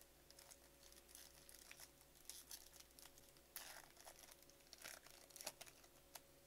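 Faint crinkling of a Bowman baseball card pack's shiny wrapper being handled and torn open, with a louder tear about halfway through.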